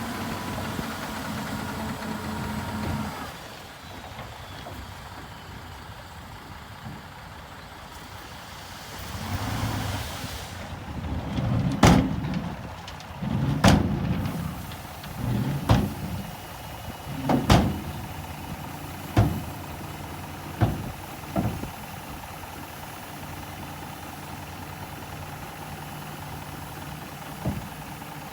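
Heavy earthmoving machinery running at a steady engine note, with a series of about eight heavy metal clanks, one every second and a half or so, that grow weaker and then stop.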